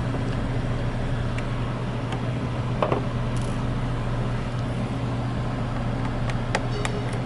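A steady low hum with a few light clicks of a small hex screwdriver and screws against the drone's plastic body, one about three seconds in and several near the end.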